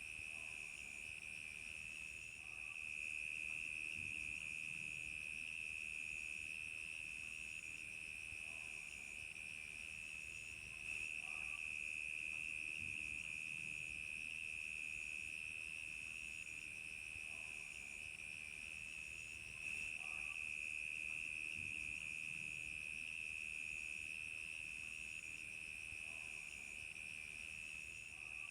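Crickets chirping in a continuous night chorus: a steady high trill, with a fainter, higher call that pulses on and off in a regular rhythm.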